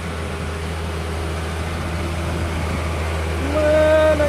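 Flatbed truck's diesel engine pulling uphill under the load of a backhoe loader: a steady low drone that grows louder as the truck nears. Near the end a held, pitched tone joins in.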